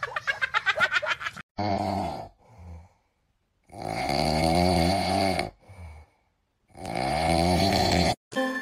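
A cat's fast, pulsing yowl that stops about a second and a half in, then a French bulldog snoring in its sleep: three loud, drawn-out snores about two and a half seconds apart, each followed by a short, quieter one.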